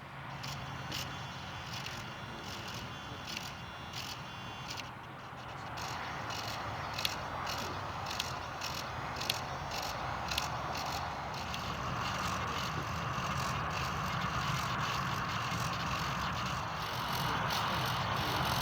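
Small brushless electric motor and propeller of an ultra-micro RC Cessna 182 running, growing louder from about six seconds in, with many short clicks over it.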